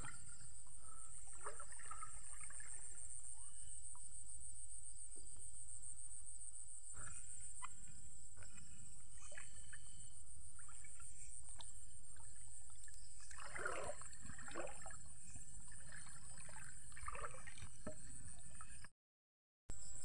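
Night ambience by a small stream: a steady high-pitched insect chorus over trickling water, with scattered rustles and knocks. The sound drops out for a moment near the end.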